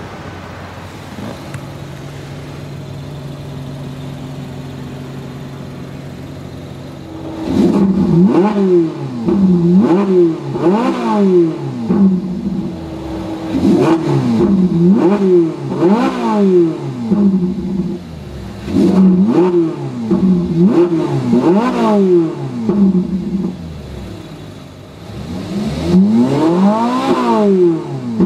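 Ferrari 458 Italia's naturally aspirated 4.5-litre V8 idling steadily for about seven seconds, then revved in park about seven times. Each rev rises and falls in pitch, and the last one near the end is the longest and highest.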